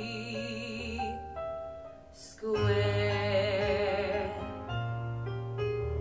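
A woman singing a slow ballad into a microphone over a piano backing track, holding the end of a line on a long note with vibrato. The accompaniment carries on with a short phrase of its own.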